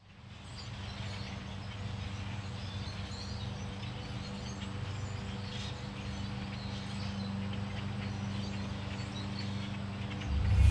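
Outdoor ambience: scattered faint bird chirps over a steady low hum. Music comes in loudly right at the end.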